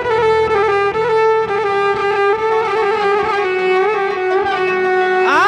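Violin playing an ornamented instrumental phrase in maqam Dasht, with held notes and small turns, between sung lines of an Iraqi rural song. A quick upward slide comes just before the end.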